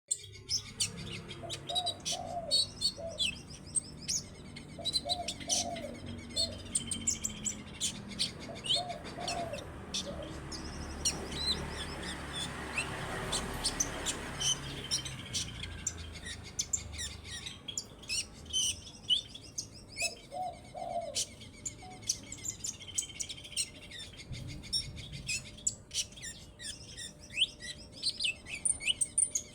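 Rapid, high twittering chirps of a sunbird (kolibri ninja), repeated throughout. A few short, lower calls from another bird come in early and again about two-thirds through, and a broad rush of noise swells and fades in the middle.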